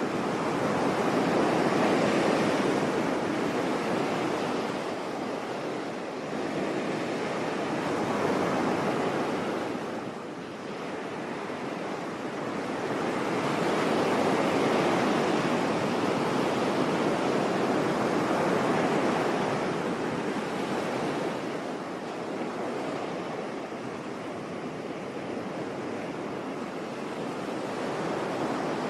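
Sea waves breaking and washing on a beach, a steady rush of surf that swells and ebbs in slow surges a few seconds apart.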